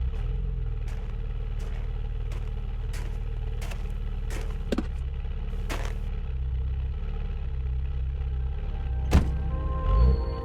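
A car running, with a steady low rumble and irregular sharp clicks every second or so, the loudest about nine seconds in.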